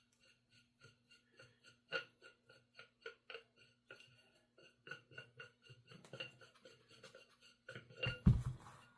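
Quick run of light metallic clicks, several a second, as small parts of a PCP air rifle are worked apart by hand, with a heavier low thud near the end.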